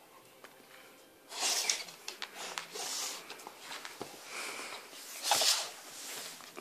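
A Cardigan Welsh Corgi sniffing and snuffling hard at a wooden treat-puzzle board, several short breathy snorts with the strongest near the end. Light clicks and knocks of the sliding blocks and the board come between them.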